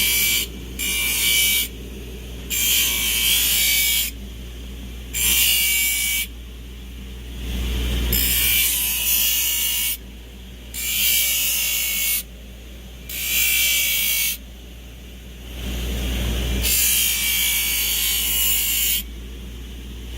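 Electric grinder running steadily while the steel of a horseshoe knife blade is pressed against it in about eight separate passes of one to three seconds each, grinding an edge onto the blade.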